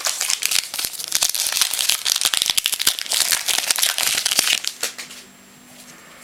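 Plastic-foil trading card pack wrapper crinkling as it is handled and opened, stopping about five seconds in.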